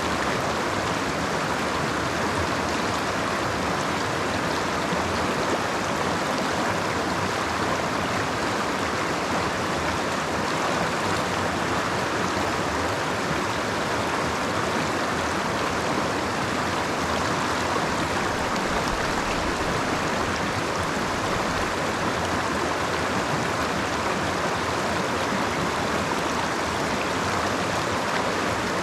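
Creek water flowing and rushing steadily, an even, unbroken noise that is strongest in the middle of the range.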